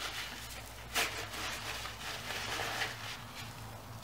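Faint rustling of paper being handled, with one sharper rustle about a second in, over a low steady hum.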